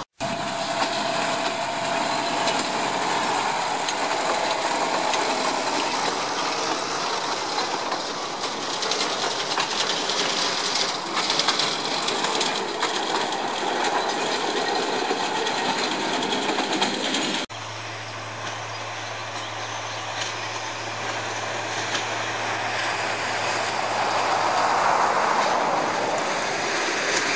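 Bord na Móna 3 ft gauge diesel peat trains running, with locomotive and wagon wheel noise on the rails. The sound changes abruptly about two-thirds of the way through. After that a low steady engine hum runs under the wheel noise, and it grows louder near the end as a locomotive hauling loaded peat wagons approaches.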